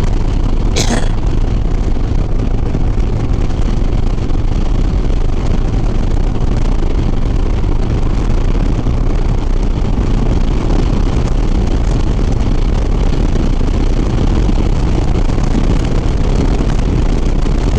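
Harley-Davidson Sport Glide's V-twin engine running steadily at highway speed, with constant wind rush over the rider's microphone. A brief sharp noise comes about a second in.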